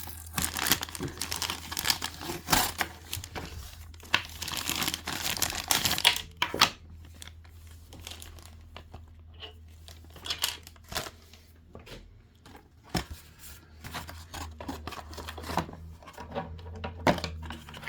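Plastic and cardboard doll packaging crinkling and tearing as it is handled, dense for about the first six seconds, then thinning to scattered clicks and rustles, over a steady low hum that stops near the end.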